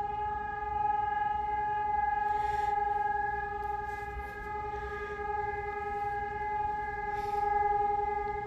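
Electronic civil-defence sirens of the Sonus HES 600 type sounding one long steady tone with no rise and fall: the one-minute all-clear (Entwarnung) signal of a siren test.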